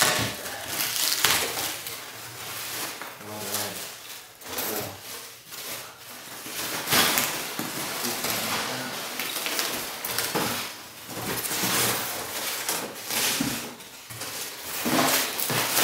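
Polystyrene packing peanuts and plastic bubble wrap rustling and crackling irregularly as hands dig through them in a cardboard box, with louder bursts about seven seconds in and near the end.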